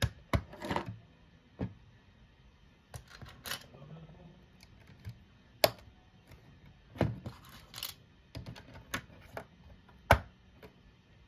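Plastic LEGO bricks clicking and snapping together as pieces are pressed onto a model by hand: irregular sharp clicks with quiet gaps, the loudest about six and ten seconds in.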